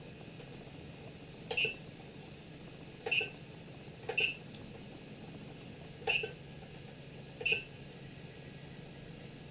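Creality CR-10 control box giving five short beeps, spaced a second or two apart, as its menu knob is pressed. A steady low hum from the printer's fans runs underneath.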